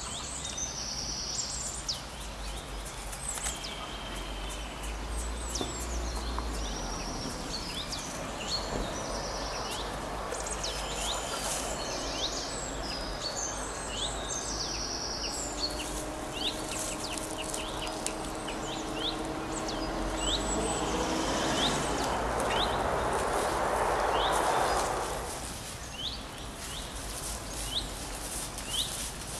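Many small birds chirping and singing over a steady outdoor ambience. A rushing noise swells up about two-thirds of the way through and falls away a few seconds later.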